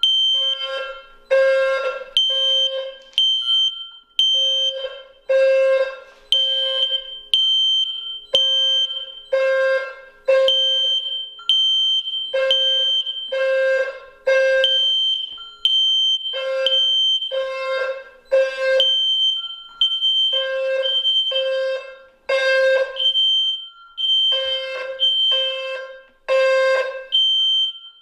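Fire alarm sounding after its pull station has been pulled. The horn goes in the temporal-three evacuation pattern, three short blasts then a pause, over and over, and a second, higher-pitched tone carries on through the pauses.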